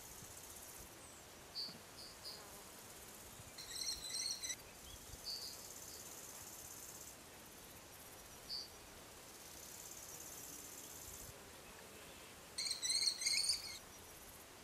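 Common kestrel giving two short bursts of rapid, shrill repeated calls, one about four seconds in and one near the end. Under them runs a steady high insect hiss that comes and goes, with a few faint short chirps.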